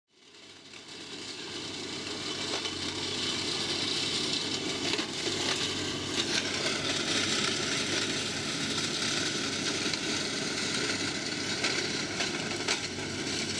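Tractor engine and rear-mounted flail mower running steadily while cutting grass, with a few faint ticks. The sound fades in over the first couple of seconds.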